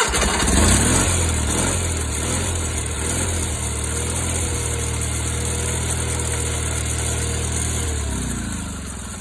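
Wheel Horse 520H garden tractor engine running steadily at high throttle, its speed and loudness dropping about eight seconds in. The throttle won't hold at full and slips down.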